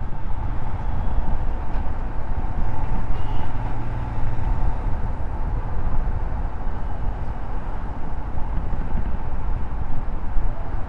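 Vehicle traffic noise: engines running with a heavy, steady low rumble and a thin steady whine over it.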